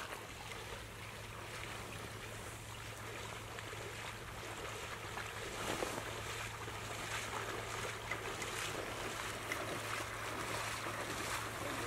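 Water sloshing and splashing from someone wading through shallow flood water. The splashes come in soft, repeated strokes about once a second from about halfway in, over a steady low hum.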